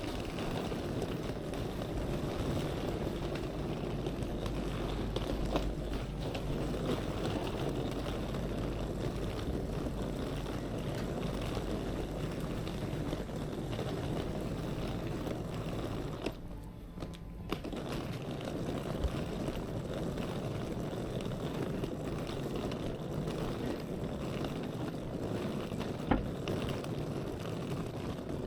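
Steady city street noise with a low traffic rumble. It briefly drops away a little past halfway through.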